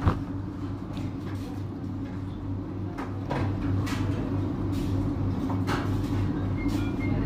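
A clear plastic water bottle being handled and drunk from: scattered short clicks and crinkles over a steady low hum.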